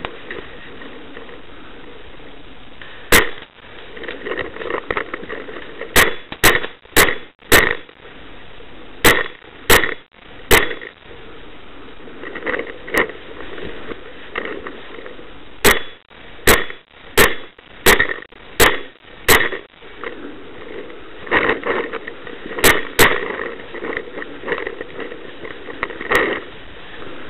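Semi-automatic Brass Eagle Stingray paintball marker firing close to the microphone: about eighteen sharp cracks, some single and some in quick strings of three to five shots about half a second apart. Fainter shuffling noise comes between the shots.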